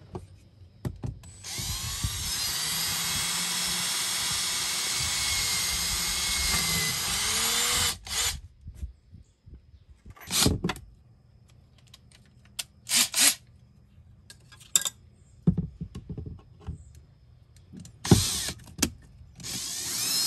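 Power drill boring holes in the boat: one steady run of about six seconds with a whine that wavers in pitch, then several short bursts of the drill.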